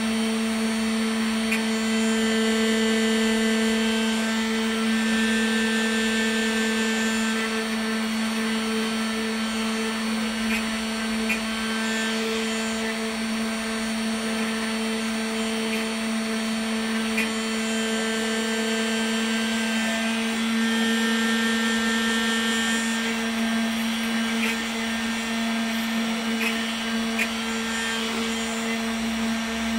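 Homemade CNC router carving a block of carving wax: its spindle motor runs with a steady whine while the cutting bit mills the wax, with a few faint ticks from the cutting. The sound swells slightly now and then as the cut moves.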